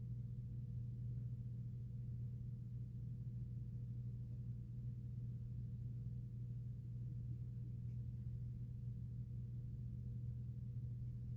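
A steady low hum with a faint higher tone above it, unchanging throughout, with no voice.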